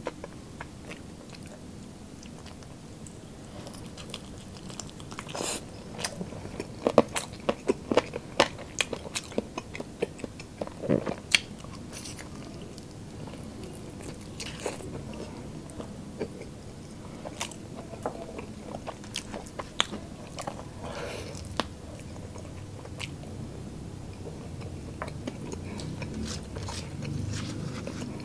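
Close-miked biting and chewing of a spicy fried chicken wing: a run of sharp crunches and wet mouth clicks, thickest in the first half, then quieter chewing toward the end.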